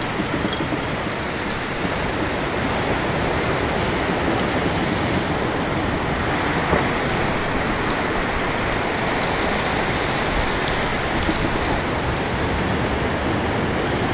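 Steady noise of surf and wind, even and unbroken, with no distinct events.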